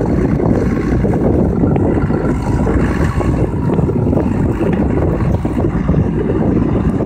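Diesel engine of a Hürlimann Master 165 hp tractor running steadily under load while it pulls a four-furrow Rabewerk reversible plough through the soil, with wind buffeting the microphone.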